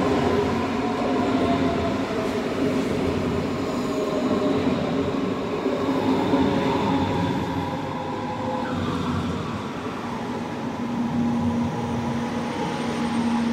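Electric S-Bahn commuter train pulling into the platform and rolling past close by: continuous running and rail noise with a motor whine that slowly falls in pitch as the train slows.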